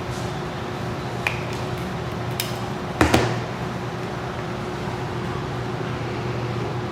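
A steady mechanical room hum with a few sharp clicks over it; the loudest is a double click about three seconds in.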